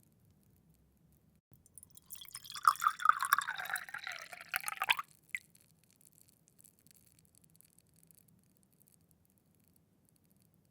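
Water poured into a glass in one short pour of about three seconds, starting about two seconds in and stopping abruptly. A single small click follows, then a few faint drips.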